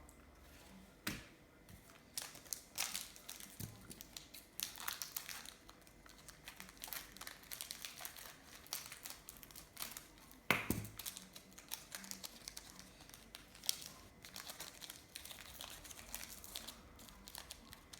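Crinkling of a trading-card pack wrapper and cards being handled, with irregular crackles throughout and a couple of sharper clicks, about a second in and again about ten and a half seconds in.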